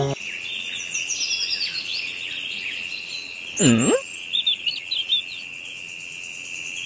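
Birds chirping over a steady high-pitched trill. A little past halfway there is one short, louder swoop that dips in pitch and rises again, and more chirps follow it.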